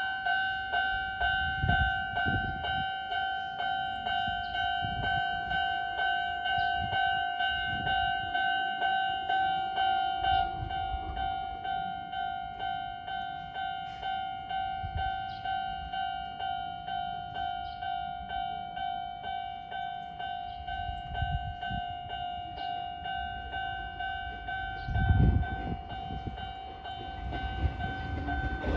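Japanese railway level-crossing alarm bell ringing its electronic ding-ding in a steady repeating beat, signalling an approaching train. A low rumble of the approaching train builds near the end.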